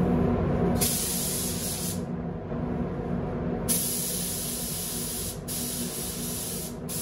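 Gravity-feed spray gun hissing in three bursts as the trigger is pulled and released: the first about a second in, then two longer bursts with a short break between them. Under it runs the steady hum of the spray booth's air system.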